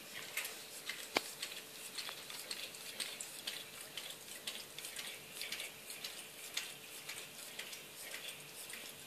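Bull terrier licking a cat's fur: quick, irregular wet clicks and smacks of the tongue, with one sharper click about a second in.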